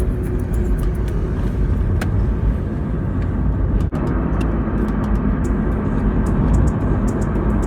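Wind buffeting the microphone: a loud, steady low rumble, broken by a brief dropout near the middle.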